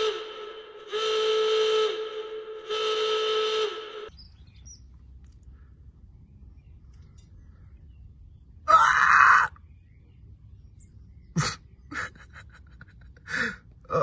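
An alarm-style warning sound effect: three loud, steady, horn-like blasts of about a second each, each dipping in pitch as it ends. After it comes a low steady outdoor background, broken by one loud short sound about nine seconds in and a few sharp clicks near the end.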